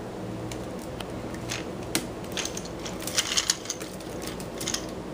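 Wicker basket crackling in scattered quick clicks as a kitten scrambles around inside it, busiest about three seconds in.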